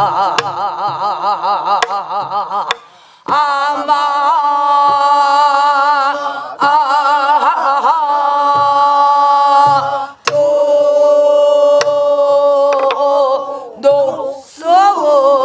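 Namdo folk song (Namdo minyo) sung by a woman leading a class that sings along, with long held notes in a wide, shaking vibrato. A buk barrel drum gives occasional sharp strokes to keep the rhythmic cycle.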